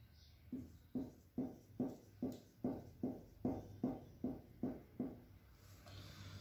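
Marker pen drawing small ovals on a whiteboard: a regular run of short knocking strokes, about two to three a second, that stops about five seconds in.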